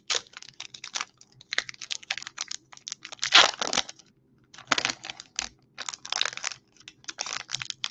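A Pokémon booster pack's foil wrapper crinkling as it is torn open and handled, in a run of crackly bursts, the loudest about three and a half seconds in.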